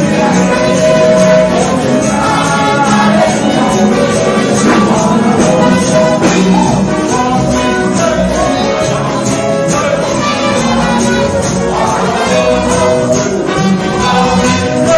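Live church music: singing through a microphone over band accompaniment with a steady beat.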